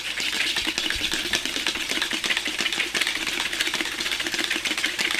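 KastKing Kodiak 5000 spinning reel cranked quickly to load braided line onto its spool: a steady whir of the gears with very fast, even clicking.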